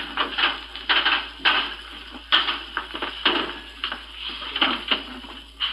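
Hurried, irregular clattering and knocking of kitchen cabinet drawers and dishes being handled, several knocks a second.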